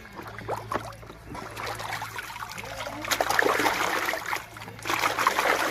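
Water splashing and trickling as plastic toys are washed by hand in a tub of water, with irregular splashes strongest about three seconds in and near the end, over a steady low hum.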